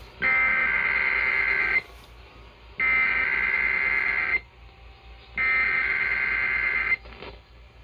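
Emergency Alert System SAME header: three bursts of digital data tones, each about a second and a half long with about a second of pause between, a harsh buzzing warble encoding a Required Weekly Test. Received off AM radio, with a faint low hum under the gaps.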